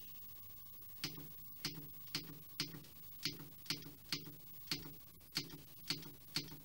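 Plastic buttons clicking under repeated presses, about twice a second, starting about a second in, each click with a soft thud; typical of stepping through channels on a remote control. A faint steady high whine runs underneath.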